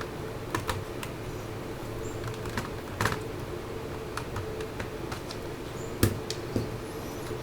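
Small irregular clicks and taps of a Phillips screwdriver unscrewing the optical drive's retaining screw from a small-form-factor PC's case, the sharpest about three and six seconds in.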